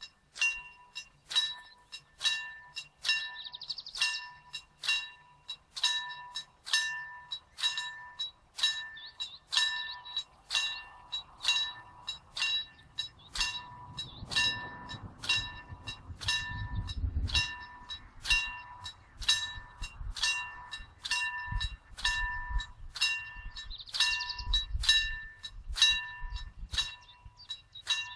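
Railway level-crossing warning bell striking in a steady rhythm, a little over one ring a second, starting suddenly: the crossing has been triggered by an approaching train. Low rumbling comes and goes in the middle and near the end.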